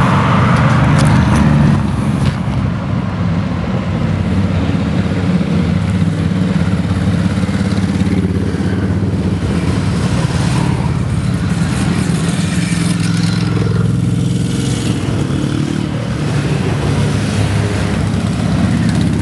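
A column of motorcycles riding past, their engines running together in a steady low drone, with brief swells as single bikes pass close, about ten and fourteen seconds in.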